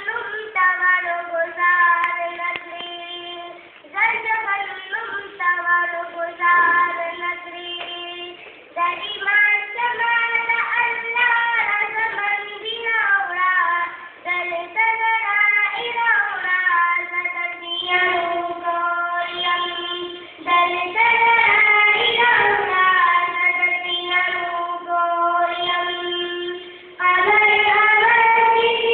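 A girl singing solo and unaccompanied, holding long high notes in short phrases with brief breaks between them.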